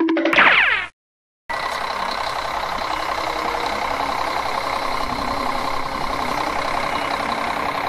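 A short sweeping-tone sound effect, then a cut to silence about a second in. After that a steady engine-idling sound effect, like a heavy vehicle's diesel engine running, plays on unchanged as the voice of a toy backhoe loader.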